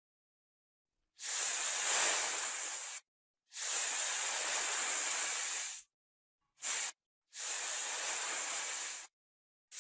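Snake hissing: four breathy hisses with silence between them, three lasting about two seconds each and a very short one between the second and the last.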